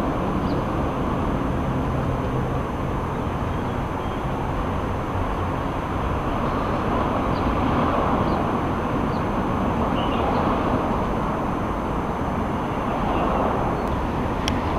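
Steady, even rumble of distant city road traffic, with a single sharp click near the end.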